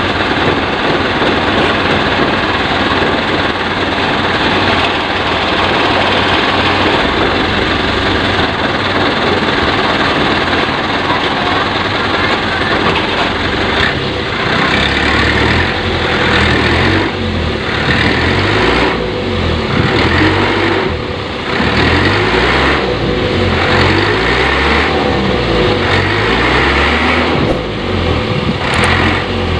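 Small dump truck's engine running loudly. From about halfway its sound swells and falls back every second or two.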